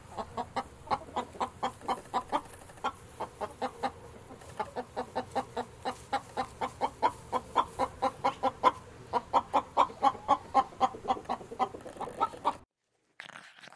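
Chickens clucking: a long run of short clucks, about three or four a second, that cuts off abruptly near the end.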